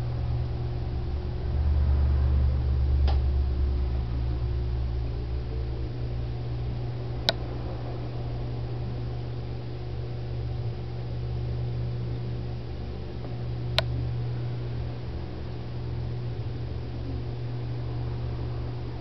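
Reef aquarium's pumps running: a steady low hum with hiss, a little stronger for a few seconds near the start. Three short sharp clicks come through along the way.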